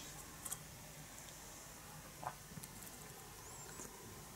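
Quiet room tone with a few faint, soft clicks and scrapes of a table knife working in an open tin of fish fillets, about half a second in and again a couple of times around the middle.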